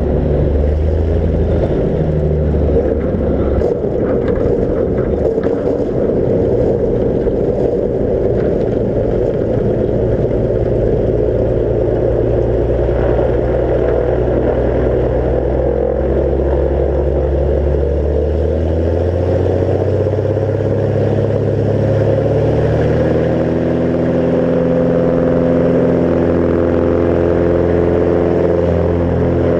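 Bearhawk light aircraft's piston engine and propeller running at low power as it rolls out and taxis on a gravel river bar. The sound is rougher and noisier for the first ten seconds or so, then the engine note steadies and rises slightly after about twenty seconds.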